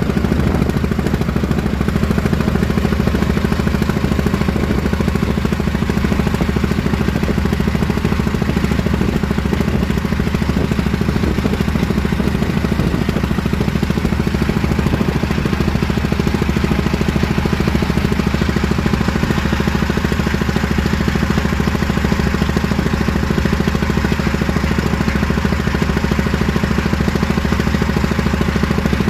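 A small engine running steadily at a constant speed throughout, with no change in pace.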